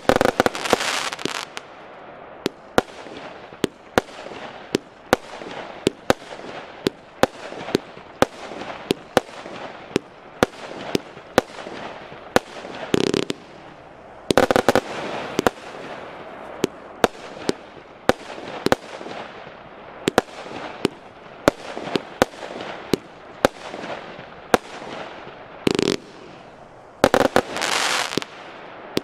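Piromax PXB3935 200-shot, 20 mm consumer firework battery (category F3) firing: a steady string of sharp reports about two a second, with a few louder, longer bursts of crackling scattered through it.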